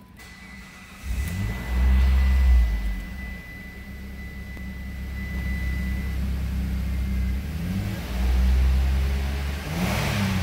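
2007 Mitsubishi Outlander's 3.0-litre V6 starting about a second in, flaring briefly, then idling steadily. Near the end it is revved twice, to around 4,000 rpm.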